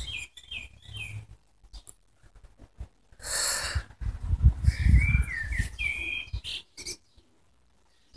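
Birds calling in short, quick gliding notes, in two spells: near the start and again in the second half. A brief hissing burst comes about three seconds in, and a low rumble runs through the middle.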